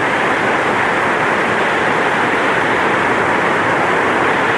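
Loud, steady hiss of noise with no changes, an even rushing sound as loud as the speech around it: static-like interference on the recording.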